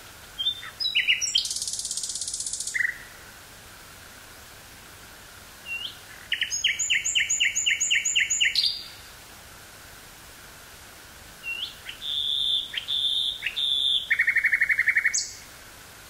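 Common nightingale singing: three separate song phrases a few seconds apart, each built of fast repeated notes and rapid trills, with pauses between them.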